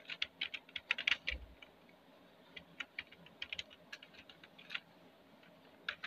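Computer keyboard typing: a quick run of keystrokes, a short pause, then slower, scattered keystrokes.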